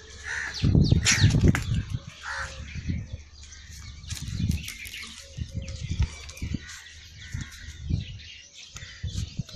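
Birds chirping in the background, with uneven low rumbling thumps on the microphone, loudest about a second in.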